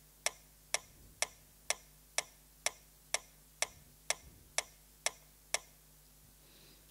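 Korg B1 digital piano's built-in metronome clicking at 125 beats per minute, about two even, unaccented clicks a second. The clicks stop a little over five seconds in.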